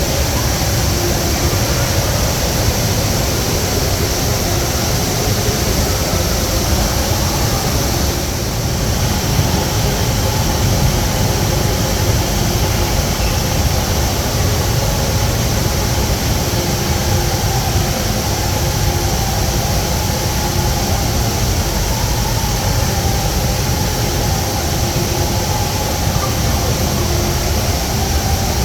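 Steady, loud rush of falling water from the Rain Vortex, the tall indoor waterfall, pouring down into its pool.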